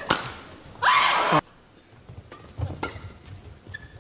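Sharp crack of a racket striking a shuttlecock, then a loud, high-pitched shout from a player lasting about half a second that cuts off abruptly. A few fainter shuttle hits follow in the second half.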